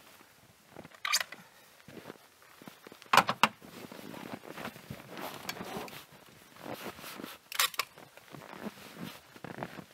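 Footsteps crunching in snow and clothing rustling as a person shifts about and kneels down. A few short sharp crunches or knocks come about a second in, around three seconds in and near the end.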